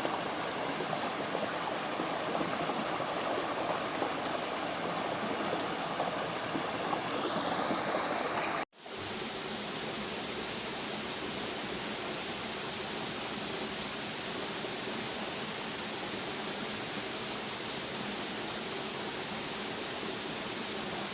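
Waterfall: a steady rush of falling water. About nine seconds in it cuts out for an instant and comes back brighter and hissier.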